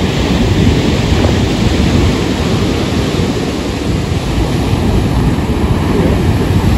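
Sea surf breaking against rocks and washing up the beach, a steady rushing noise, with wind rumbling on the microphone.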